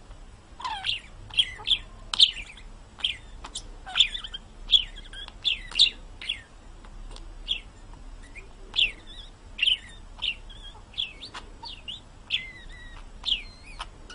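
A small bird chirping over and over: short, sharp chirps that slide downward in pitch, one or two a second, with a few louder ones.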